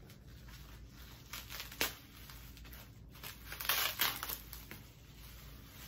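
Packing material crinkling and rustling as it is handled and pulled off an item from a box, with sharper crackles about two seconds in and again about four seconds in.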